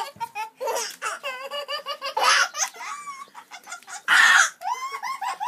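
Small child giggling and squealing in quick high-pitched bursts, with two louder breathy laughs about two and four seconds in.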